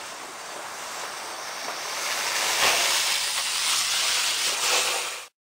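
Small rocket motor burning with a steady rushing hiss that builds louder from about halfway, then stops suddenly near the end.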